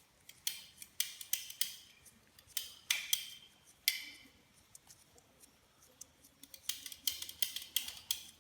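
PTFE thread seal tape being pulled off its roll and wound tightly around a threaded pipe fitting, making a series of short, sharp rasps with a pause of about two seconds midway.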